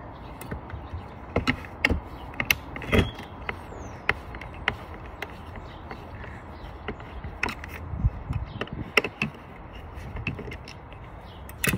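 T15 screwdriver working screws out of a Dyson V8 vacuum's plastic housing: irregular small clicks, taps and creaks of the tool and parts being handled.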